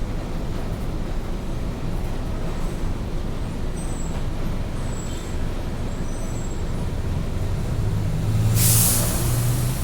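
Mercedes-Benz OF-1722M bus running with a steady low rumble. About eight and a half seconds in there is a short, loud hiss of released compressed air from its air system, typical of the air brakes.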